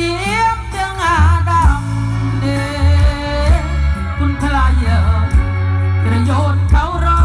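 A song with a lead singing voice over heavy, steady bass notes, played loud through a large outdoor PA sound system during a sound test.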